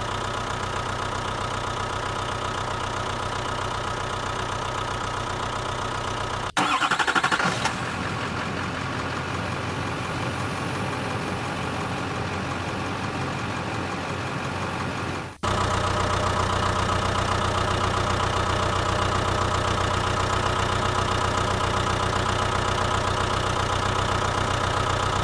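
Vehicle engine running steadily at idle, in three stretches that cut off abruptly about six and fifteen seconds in, with a brief louder burst just after the first cut and the last stretch louder.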